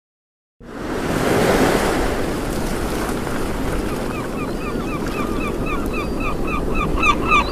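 Sea waves and wind swelling in after a moment of silence. About four seconds in, a seabird starts a fast series of short calls, about three a second.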